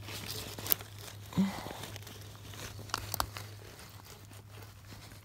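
Scattered crunches, clicks and rustling of moving through forest undergrowth, twigs and vegetation brushing and snapping close to the phone, with a faint steady low hum underneath.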